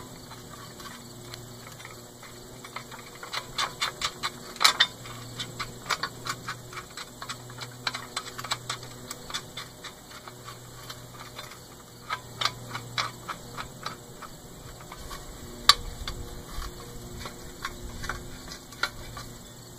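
Scattered light metallic clicks and taps of nuts, bolts and washers being handled and fitted to a steel cart beam. They come in small bunches, with one sharper click about three-quarters of the way through.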